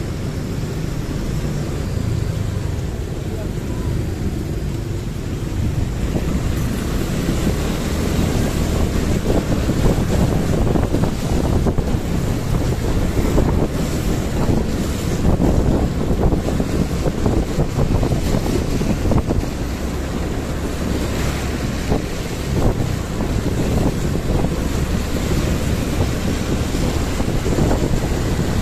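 Wind buffeting the microphone on a moving motorbike, over the steady low running of its engine.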